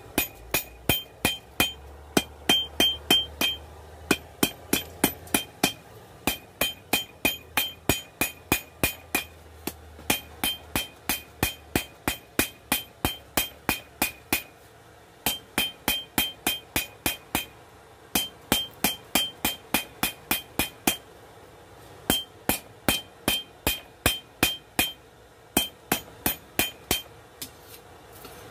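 Hand hammer of about a pound and a half forging hot coil-spring steel on an anvil: runs of quick blows, about three a second, broken by short pauses. Each blow rings with a bright metallic tone.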